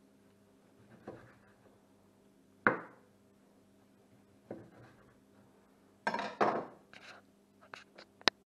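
Kitchen knife slicing through boiled sea cucumber and knocking on a wooden cutting board, three separate strokes about a second and a half apart, the middle one the loudest. About six seconds in comes a louder clatter, then a few sharp clicks near the end as the knife is set down.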